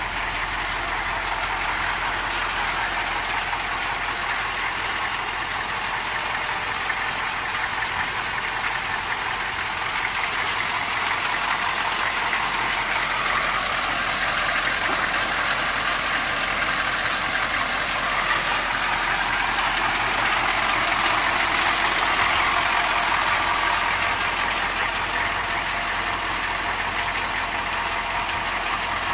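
A 6.2-litre diesel V8 running steadily at idle, a little louder in the middle.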